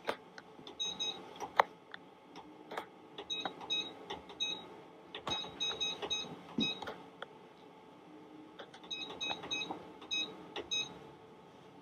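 Short electronic beeps from the touchscreen of an optician's lens centering and edging machine as measurements are keyed in with a stylus. They come in quick runs of two to five, several times, with scattered clicks and taps between.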